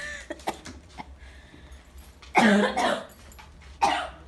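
A person coughing hard: a double cough about two and a half seconds in, then another cough about a second later.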